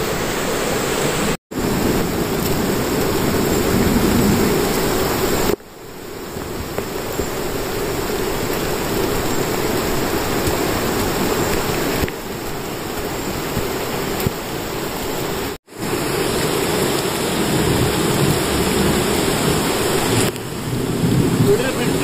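Steady rushing of water from the cascading streams and falls beside the trail, a continuous loud roar. It cuts out completely for an instant twice.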